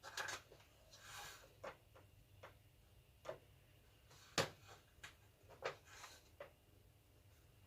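Faint, irregular clicks and light knocks of small parts being handled, with a brief rustle about a second in and the sharpest knock about four and a half seconds in.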